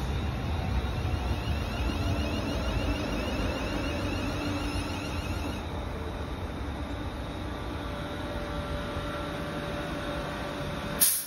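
London Northwestern Railway Class 350 Desiro electric multiple unit rolling slowly past: a steady running rumble of wheels on rail with a faint electric whine. A sharp click near the end.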